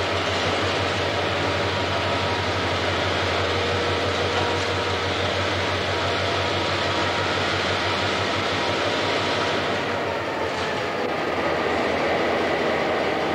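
EMD F-unit diesel locomotive engine running steadily, with a low, even throb underneath that eases a little about ten seconds in.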